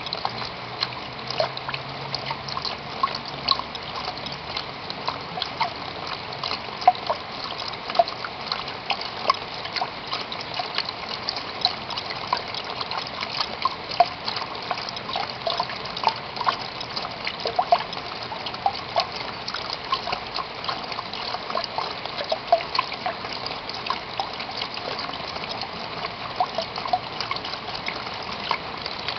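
Steady rain falling, full of many small irregular drips and splashes.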